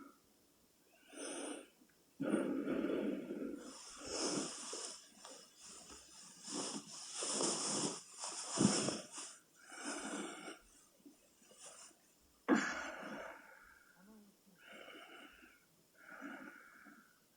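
A sleeping person snoring, in irregular rough, wheezy breaths. There is a sharp snort a little past the middle, and the breaths grow softer and shorter near the end.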